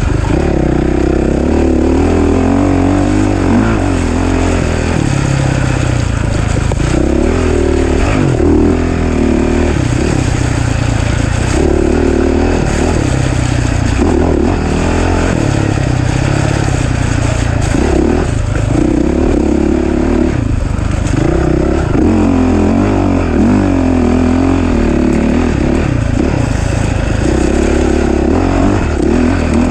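Off-road race bike engine under hard throttle, its revs rising and falling over and over as it works through the course.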